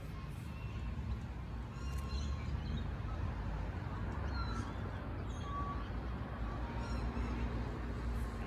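Outdoor ambience: a steady low rumble with birds calling briefly a few times over it.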